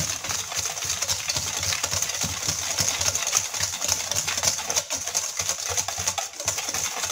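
Wire whisk beating a runny egg-and-oil mixture in a stainless steel bowl: a rapid, steady clatter of the wires striking and scraping the metal.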